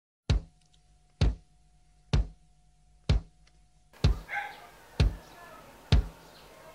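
Slow, evenly spaced booming drum hits, about one a second. From about four seconds in, a dog barks and yips faintly in the background.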